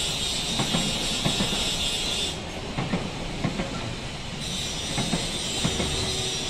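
Train passing out of sight, its wheels clattering over the rail joints in a quick uneven rhythm over a steady hiss of rolling noise.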